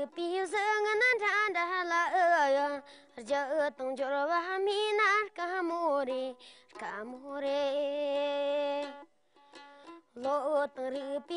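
A Tibetan folk song: a high solo voice singing in phrases with wavering, ornamented pitch and a long held note about seven seconds in.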